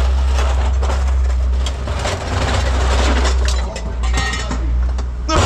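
A large engine running steadily with a low, even hum, and scrap metal clanking and scraping over it.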